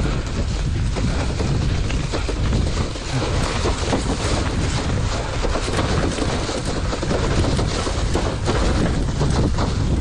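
Wind buffeting the microphone over the rattling and jolting of a city bicycle ridden across rough grassy ground, with many small knocks throughout.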